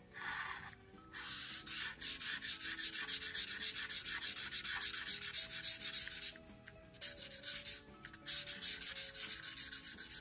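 Brown felt-tip marker scribbling fast back and forth on paper, colouring in a filled shape, with brief pauses near the start, about six seconds in and around eight seconds.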